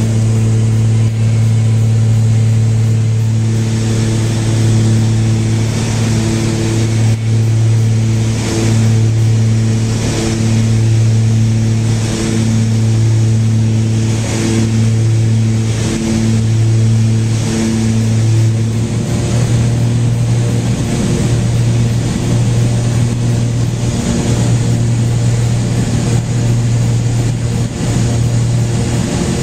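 Small aircraft's engine droning steadily, heard from inside the cockpit, with a shift in its tone about two-thirds of the way through.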